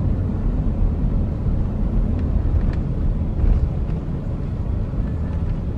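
Steady low rumble of road and engine noise heard inside a moving car, with a couple of faint clicks.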